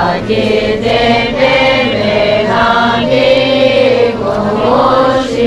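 A group of voices chanting a Tibetan prayer together in unison: a continuous sung recitation with long held, slowly gliding notes.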